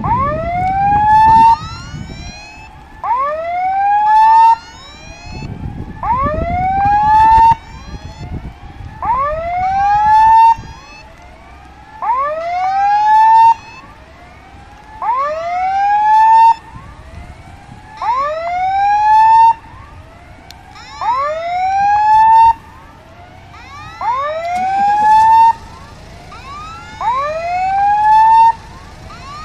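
Level crossing warning alarm sounding: a loud electronic rising whoop repeated about every one and a half seconds, every other one louder, signalling that a train is approaching.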